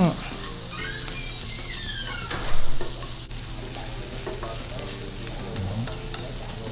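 Minced lemongrass, chili, garlic and shallots sizzling in oil in a frying pan while being stirred with chopsticks. One brief louder sound comes about two and a half seconds in.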